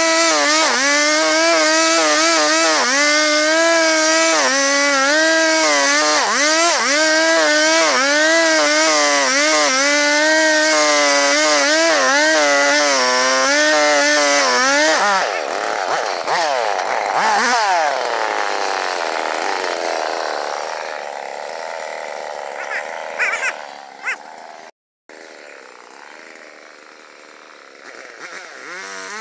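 An old two-stroke chainsaw cutting albasia wood at full throttle, its engine note wavering and sagging as the chain bites. About halfway through the throttle is released and the revs fall away to a quieter running.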